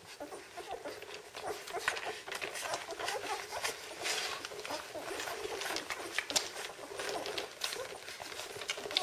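Litter of 16-day-old Czechoslovakian wolfdog puppies nursing: a steady run of wet suckling clicks and smacks, mixed with small high squeaks from the pups.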